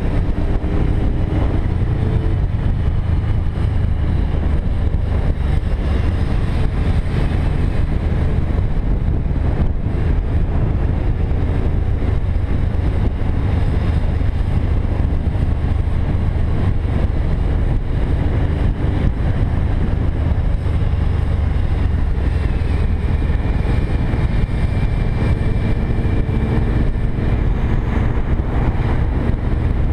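Cruiser motorcycle engine running steadily at road speed under heavy wind rush on the bike-mounted camera's microphone.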